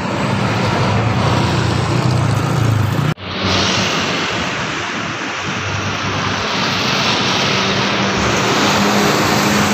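Roadside traffic noise: a passing heavy vehicle's engine drone and steady road rush, broken off by a sudden cut about three seconds in, after which steady traffic noise carries on.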